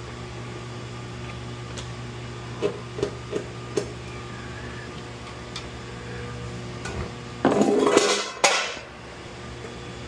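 Small clicks and taps of a screwdriver on the cover screws of a metal controller enclosure. About two and a half seconds from the end comes a loud clatter of the sheet-metal cover being handled. A steady low equipment hum runs underneath.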